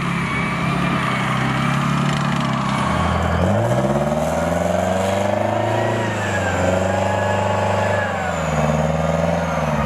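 Engine of a tracked armoured vehicle running. Its pitch rises about three and a half seconds in and falls back about six seconds in.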